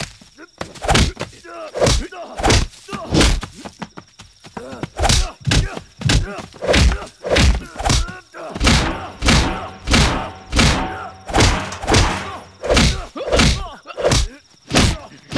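Film fight sound effects: a steady run of heavy punch and body-blow impacts landing roughly every half second to second, with a short lull a few seconds in. Grunts of effort come between the blows.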